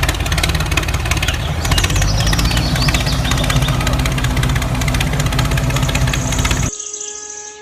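A small motor-driven tool running steadily with a rapid rattle and a low hum, cutting off abruptly near the end.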